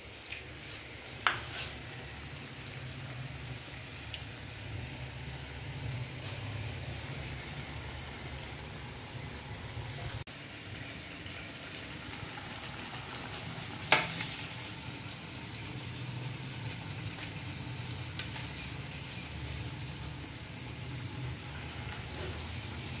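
Oil sizzling steadily as besan-battered slices deep-fry in a wok over a gas burner, with a low steady hum underneath. Two sharp clicks, about a second in and again past the middle.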